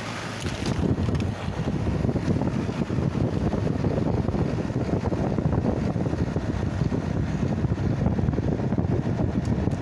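Wind buffeting the phone's microphone: a steady, low, fluttering rumble.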